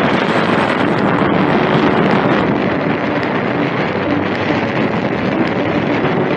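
Steady rushing wind on the microphone, mixed with skis hissing and scraping over snow on a fast downhill run.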